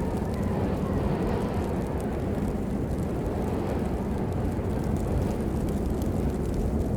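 Steady rain: a dense, even hiss with a strong low rumble and scattered ticks of single drops.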